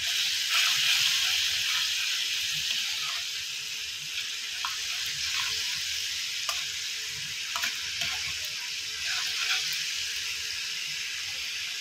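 Watery spice paste (masala) sizzling and bubbling in hot oil in a non-stick frying pan as it cooks down, with a steady hiss that is loudest about a second in. A metal spoon stirring it taps and scrapes the pan now and then.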